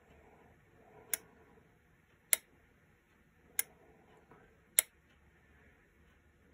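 Pinball A/C select relay clicking four times, evenly about a second and a quarter apart, as the machine's coil test steps through the solenoid drivers and switches between the A and C sides.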